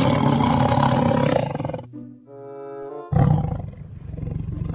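Tiger roar sound effect, played twice: a long roar, a short pause, then a second roar starting about three seconds in. Children's background music plays under it.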